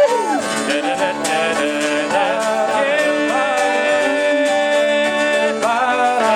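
Live Celtic rock band playing an instrumental break between verses, its melody line sliding up into long held notes.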